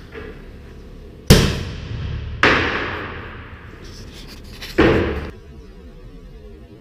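Tennis ball air cannon firing: three loud bangs over about three and a half seconds, the last one duller, each trailing off over a second or so and echoing in a large bare room.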